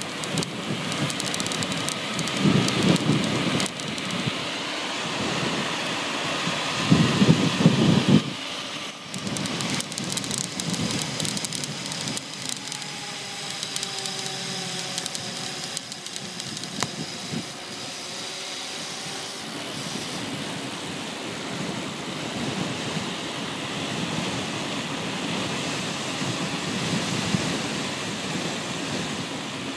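Wind rushing over the microphone and wheels rolling on asphalt during a fast downhill ride, with heavier wind buffets about three seconds in and again around eight seconds in.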